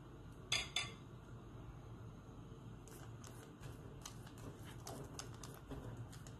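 Silicone pastry brush dabbing and spreading thin batter over a nonstick frying pan: faint soft strokes, with two sharper knocks against the pan about half a second in.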